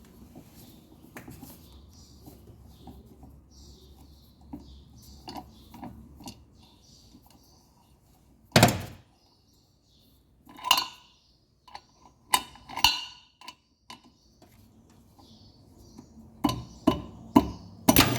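Metal knocks and clinks of tools and parts being handled while the direct-drive motor's rotor is refitted and tightened on the washer drum shaft. The loudest is a single sharp knock about halfway through, followed by scattered lighter clinks.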